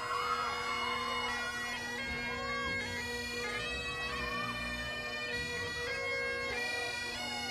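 Great Highland bagpipes playing a tune over steady drones, the chanter melody stepping from note to note.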